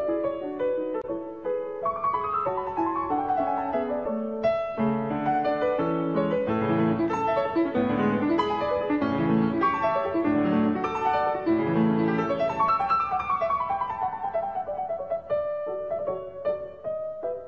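Background piano music, with rising and falling runs of notes.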